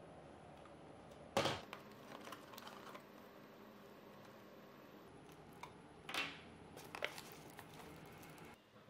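Hard plastic parts being handled: an RC transmitter, battery packs and a plastic packaging tray, giving a few sharp clicks and knocks over a faint steady background. The loudest click comes about a second and a half in, with others around six and seven seconds.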